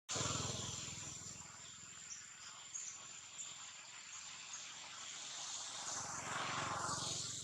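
Insects trilling with a steady high-pitched tone over a broad rushing noise that swells near the end.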